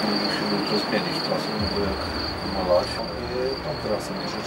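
Crickets trilling steadily in one continuous high-pitched trill.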